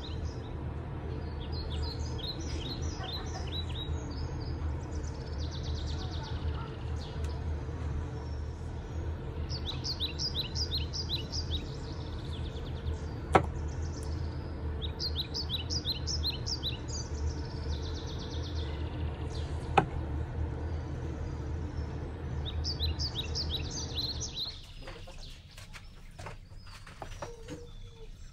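Small birds chirping in quick repeated runs, again and again, over a steady low rumble. Twice a sharp knock comes through, a knife blade striking the wooden cutting board as it slices through a tomato. Near the end the rumble drops away.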